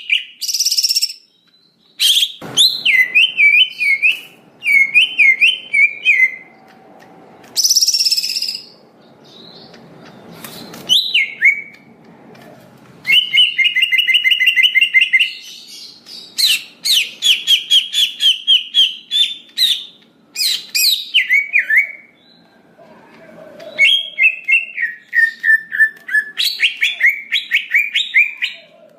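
Green leafbird (cucak hijau) singing: phrases of swooping whistles, chattering trills and fast runs of repeated notes, with short pauses between them.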